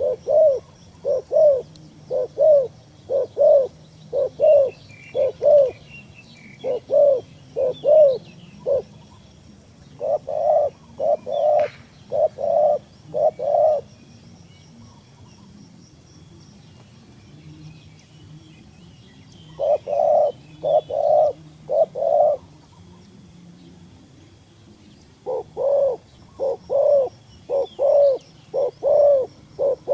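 A dove cooing in quick runs of short, even notes, about two a second, with pauses of a few seconds between runs. Faint chirps of small birds sound higher above.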